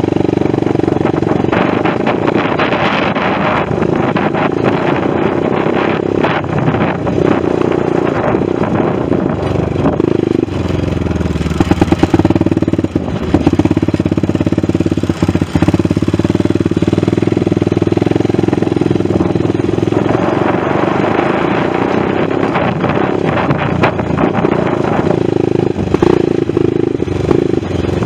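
ATV engine running under way, heard from the machine carrying the camera, its note shifting with the throttle as it rides across grass and onto a dirt trail. Rattles and knocks come from going over bumps a little before the middle.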